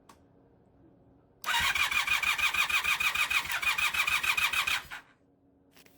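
1980 Honda CM400e's parallel-twin engine being turned over by its electric starter: an even, rhythmic cranking for about three and a half seconds that starts suddenly and stops without the engine catching. Fuel is not reaching the carburettors.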